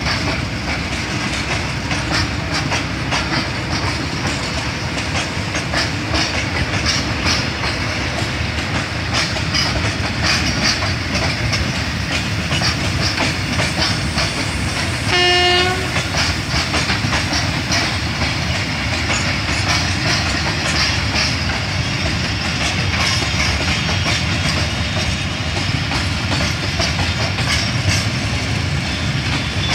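Freight train's open wagons rolling past: a steady rumble with wheels clicking over rail joints. About halfway through, a short horn blast sounds for about half a second.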